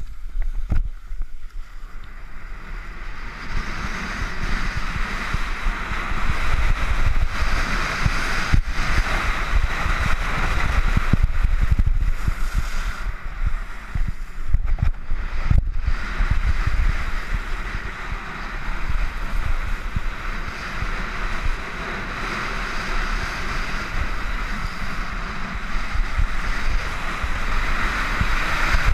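Wind buffeting a camera microphone at high speed, a constant low rumble, under the steady hiss and scrape of skis running over packed snow.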